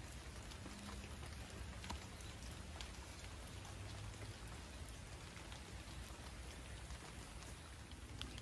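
Steady rain falling on foliage: an even hiss with scattered drops ticking.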